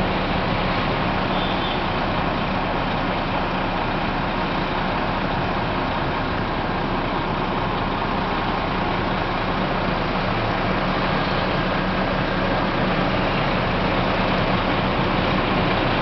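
Volvo B11R coach's rear-mounted inline-six diesel engine idling steadily, with a constant low hum under the running noise.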